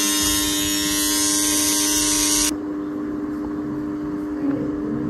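A small electric motor buzzing with a loud hiss, cut off abruptly about halfway through, leaving a quieter steady hum.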